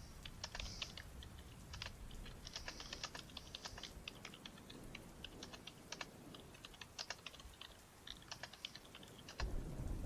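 Typing on a computer keyboard: quick, irregular keystroke clicks in short runs with small pauses between. Near the end a low rumble of thunder sets in.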